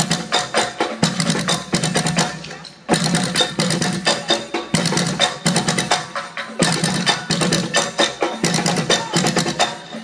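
Percussion ensemble playing drums made from recycled materials such as plastic barrels, in a fast, busy rhythm of sharp strikes. The playing breaks off briefly about three seconds in and comes straight back.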